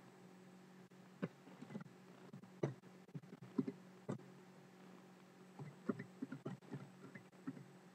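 Faint, scattered clicks and taps of a computer keyboard and mouse being worked, in two short flurries, over a steady low electrical hum.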